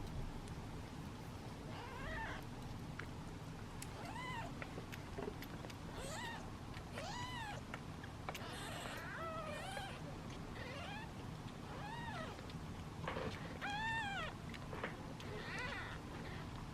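Young British Shorthair kittens meowing over and over: high, thin meows, each rising and then falling in pitch, about one a second. These are the impatient cries of hungry kittens waiting to be fed.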